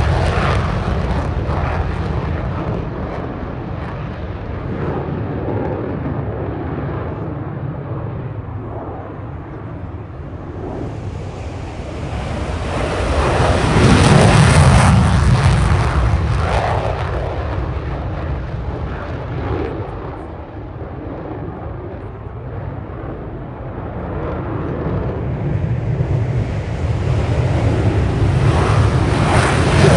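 Aircraft engines passing overhead. The roar swells to its loudest about halfway through, fades, then builds again near the end.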